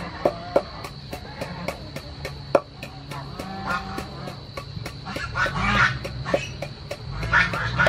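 Wooden pestle pounding in a large wooden mortar, short knocks about three to four a second, crushing dried peppers. Louder farm animal calls come in about two thirds of the way through and again near the end.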